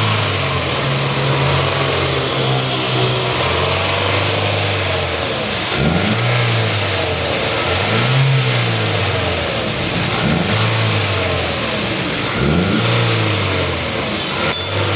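Toyota Corolla XLi engine running, then revved up and let fall back four times, about every two seconds.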